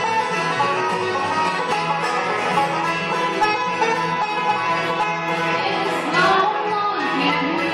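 Live bluegrass band playing, with banjo prominent over mandolin, acoustic guitars and upright bass. A singing voice comes in near the end.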